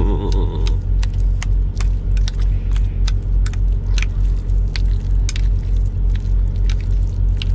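Heavy truck's diesel engine idling with a steady low rumble, while a fork clicks and scrapes against a glass baking dish as the food is stirred, in many short sharp ticks.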